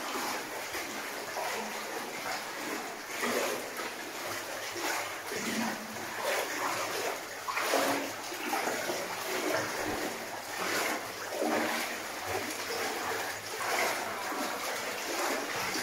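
People wading through water in a flooded mine passage, their steps splashing about once a second.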